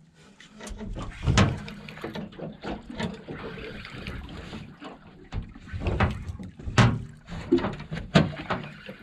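Irregular knocks and thumps on a small fishing boat, with water splashing, while a hooked fish is brought to the side. The loudest knocks come about a second and a half in and again near the end.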